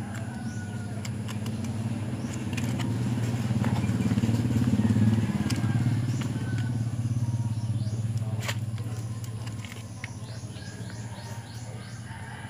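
A motor vehicle passing by: a low engine hum that swells to its loudest about five seconds in, then fades away.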